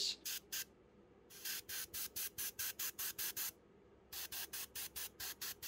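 Iwata airbrush spraying paint in short, rapid hisses, about four or five a second, pulsed in runs with brief pauses between them.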